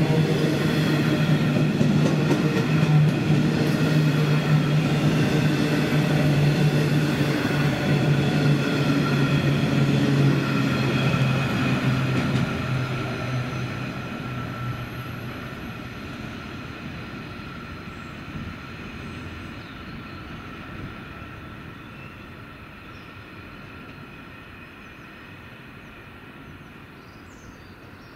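Freight train of covered wagons rolling past at speed: steady wheel-on-rail rumble with a droning tone. About twelve seconds in, the tail passes and the sound fades steadily as the train moves away.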